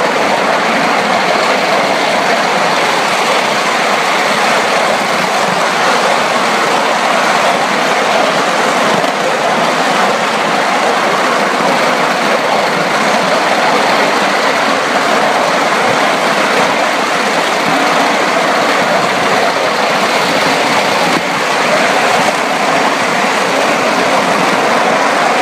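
Ride-on live-steam Atlantic (4-4-2) locomotive and its riding car running along the track at speed: a steady, unbroken rolling noise.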